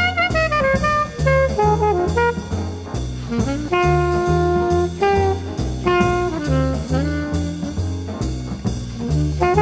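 Jazz background music: a horn melody with slides and a long held note about four seconds in, over a repeating bass line and a steady drum beat.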